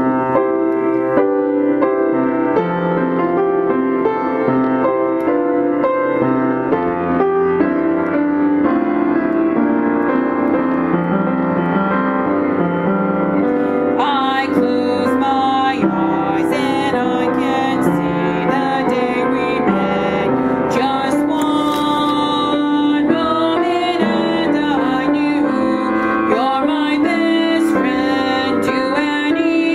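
Background music led by piano, playing steadily throughout. About halfway through, brighter, wavering high notes join in.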